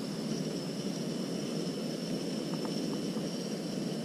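Single-burner propane camp stove running under a steel frying pan, a steady, even roaring hiss with a faint high whine. A few faint ticks come about two and a half seconds in.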